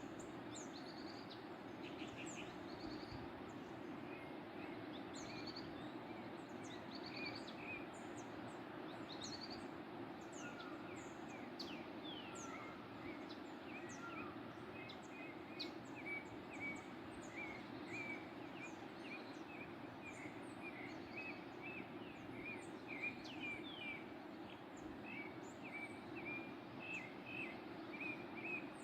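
Several small birds chirping and singing over the steady rush of a waterfall. From about halfway through, one bird keeps repeating a quick run of short chirps.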